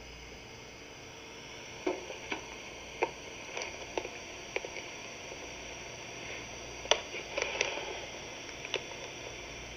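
Hands handling a small plastic Sony portable cassette recorder: scattered light clicks and taps, the sharpest about seven seconds in, over a steady hiss.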